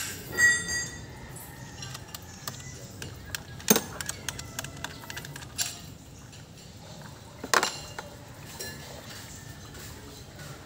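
Scattered clicks and light clinks of hands unclipping wiring connectors and handling parts on top of a car engine, with two sharper knocks, about four seconds in and again past the middle.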